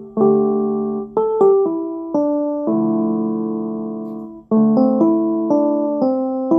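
Ringtone melody in a piano-like keyboard tone: notes and chords struck one after another, each ringing and fading away, with one long held chord in the middle.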